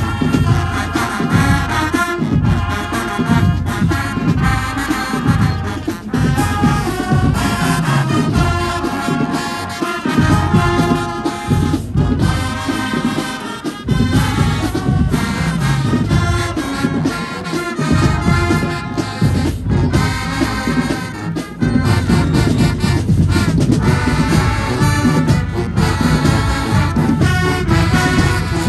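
A large marching band playing live: a full brass section over a drum line, loud and continuous. The drums and low brass drop out briefly a few times.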